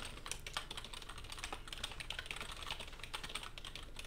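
Typing on a computer keyboard: a quick, uneven run of many keystroke clicks as text is entered at a terminal prompt.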